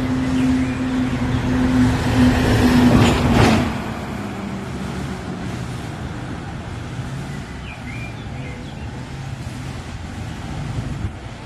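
Road traffic: a truck drives past close by with a steady engine hum, loudest about three seconds in, then moves away. Quieter traffic follows, with a motorcycle passing near the end.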